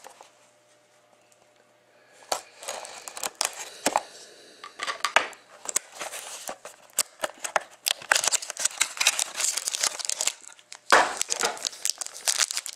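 Foil trading-card pack wrappers crinkling and tearing as they are ripped open by hand, in a dense run of crackly rustles that starts about two seconds in.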